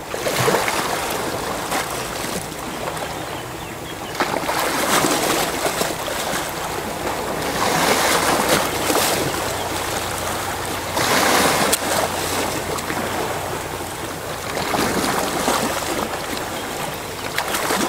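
Sea surf: waves rushing in and washing back, swelling and falling away about every three to four seconds.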